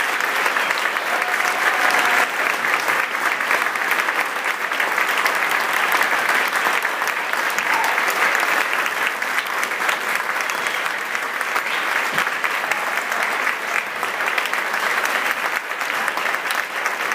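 Large audience applauding, a dense steady clapping that thins slightly near the end.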